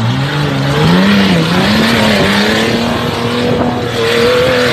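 Toyota Land Cruiser 4x4 engine revving hard under load, its pitch rising and dipping and held high, over a loud rushing hiss of spinning tyres throwing up dirt.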